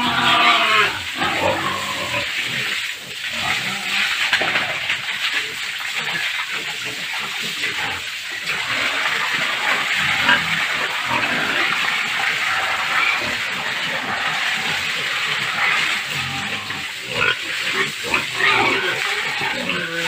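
Pigs grunting and squealing, with clusters of calls about a second in and again near the end.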